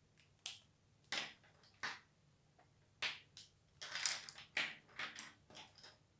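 Irregular series of about ten short scratchy rustles and clicks: art supplies being handled as a felt-tip marker is picked out.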